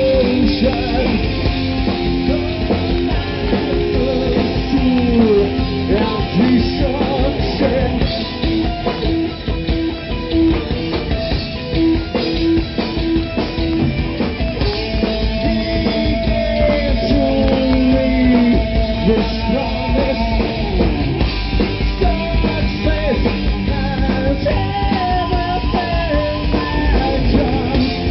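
Live rock band playing a song: drum kit and guitar, with singing.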